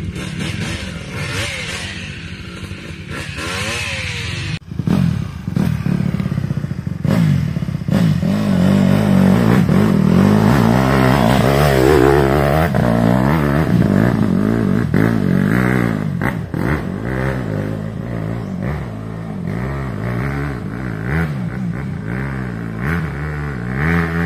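Dirt bike engine revving hard with a full FMF exhaust and an Athena big-bore cylinder, its pitch rising and falling over and over under load on a climb. For the first few seconds a fainter engine is heard revving in mud, then the loud engine cuts in about five seconds in.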